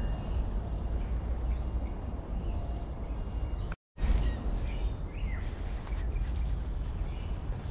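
Small birds chirping, with short high calls scattered throughout, over a steady low rumbling noise; the sound drops out to silence for a moment a little before halfway.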